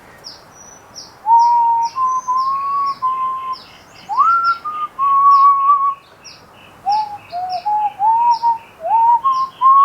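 Someone whistling a slow tune in held notes with upward slides. Small birds chirp high and repeatedly behind it.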